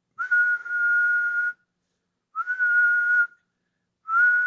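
A person whistling one steady note of about 1450 Hz three times, each a little over a second long, sliding slightly up into the pitch at the start of each.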